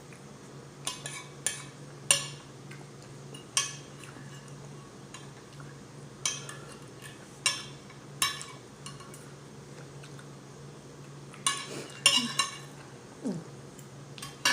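Metal cutlery clinking and scraping against a plate: about a dozen short, sharp clinks at uneven intervals, some in quick pairs near the end. A steady low hum runs underneath.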